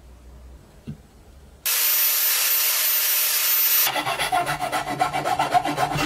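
A steel flat file rasping back and forth across the end of a wooden hammer handle in quick, even strokes, shaping it to fit the hammer head's eye; the filing starts about four seconds in. Before it comes about two seconds of a steady hiss that starts and stops suddenly, and a faint knock near the start.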